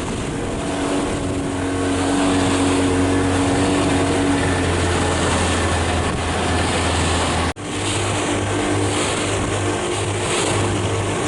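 Motorboat engine running steadily under way, with rushing wind and water noise; the sound drops out for an instant about seven and a half seconds in.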